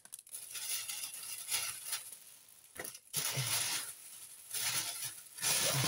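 Clear plastic packaging of a cross-stitch kit crinkling and rustling in several short bursts as it is handled, with one sharp click near the middle.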